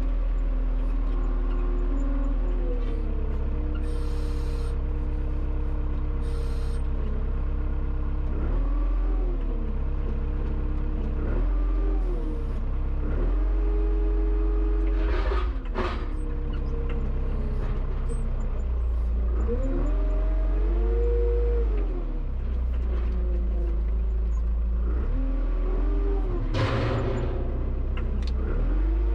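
Tractor engine running under changing throttle, its speed rising and falling again and again. There are two short noisy bursts, one about halfway through and one near the end.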